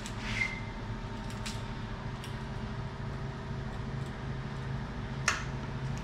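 A few light metal clicks and clinks as a ball joint press and its nut and bolt are handled and unscrewed, over a steady low hum. The sharpest clink comes near the end.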